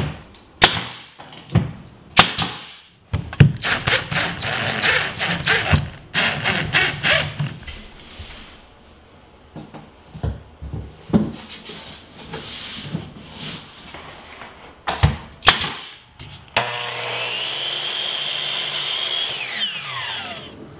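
Pneumatic nail gun firing nails through MDF beadboard into the wall: a few separate sharp shots, then a quick cluster of shots, and two more later on. Near the end a power saw runs steadily for a few seconds, then spins down with a falling whine.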